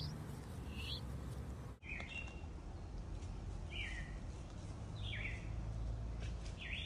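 A bird calling again and again, six short chirps that each slide downward in pitch, about one every second or so, over a steady low rumble.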